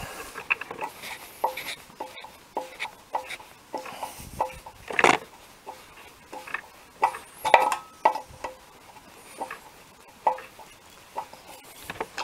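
Tight retainer screw in an OMC Cobra lower-unit housing being turned out with a screwdriver: a run of short squeaks, about two a second, with a couple of louder knocks near the middle.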